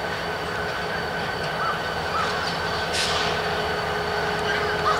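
EMD GP30 diesel-electric locomotive rolling slowly past, its turbocharged V16 diesel engine giving a steady low rumble with a steady high whine over it. There is a brief hiss about three seconds in.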